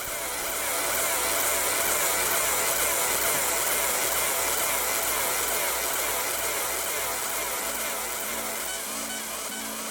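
Galvo fiber laser engraving metal handcuffs, running with a steady high-pitched hiss.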